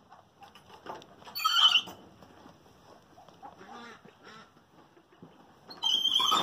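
Newborn goat kid bleating twice: a short, loud, high call about a second in and another near the end, with faint rustling and nursing sounds between.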